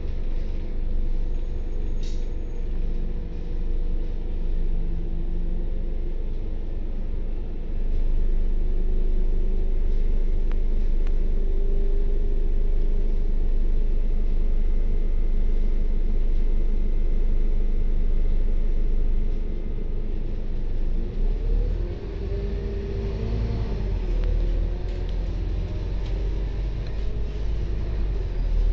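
Double-decker bus's diesel engine idling with a steady low rumble, heard from inside on the top deck. About 20 seconds in, the engine revs up with rising pitch as the bus pulls away.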